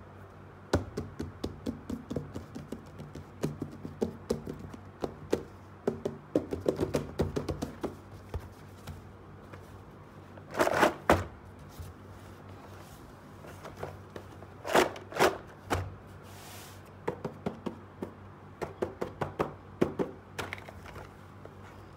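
Hands handling a cardboard box and the small plastic toys inside it: a scattered run of light taps, clicks and knocks, with two longer scraping bursts near the middle.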